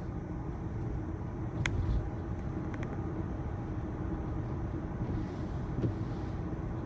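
Steady road and tyre noise of a Tesla Model Y electric SUV driving at speed, heard from inside the cabin, with a sharp click and a low thump about two seconds in.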